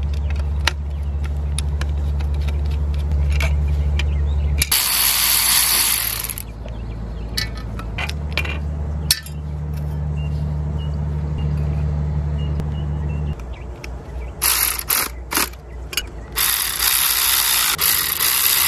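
Hand tools working on a scooter's rear sprocket bolts: sharp metal clicks and ratcheting, with a cordless electric screwdriver running in short bursts about five seconds in and twice near the end. A steady low hum sits under most of it.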